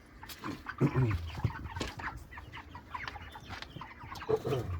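Flock of meat chickens clucking and peeping in many short, overlapping calls.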